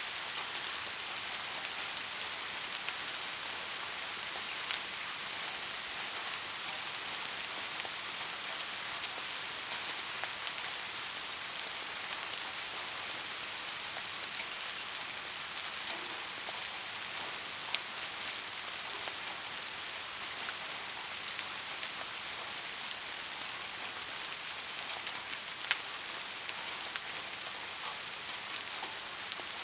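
Soft rain falling steadily on a surface, an even hiss with scattered close drops ticking here and there.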